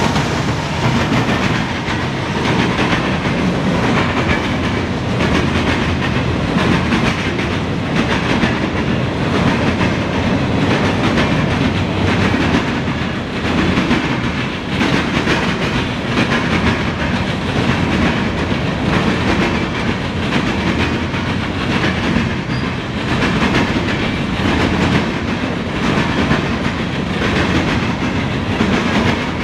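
Freight train's loaded gondola cars rolling steadily past, steel wheels clacking over the rail joints in a running clickety-clack.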